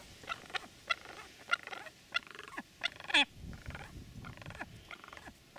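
Aggressive cock pheasant giving a rapid series of short calls, some falling in pitch, the loudest a little over three seconds in.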